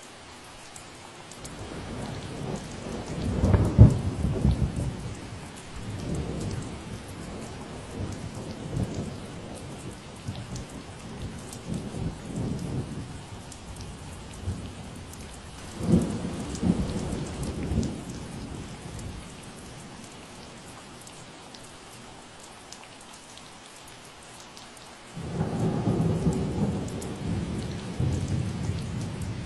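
Steady rain falling, with fine patter throughout. Thunder rolls in low rumbles three times: the loudest a few seconds in, another in the middle, and a last one that starts suddenly near the end.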